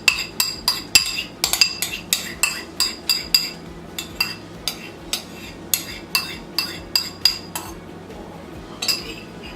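A metal utensil clinking against a dish in a quick run of ringing taps, about three a second, that pauses near the end before a few more.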